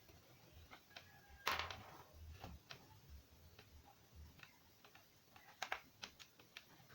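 Faint, scattered clicks and taps of small parts being handled, the sharpest about a second and a half in and a few close together near six seconds.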